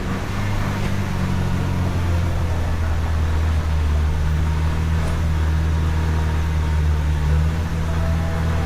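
Ford Bronco's engine running with a steady low drone while driving.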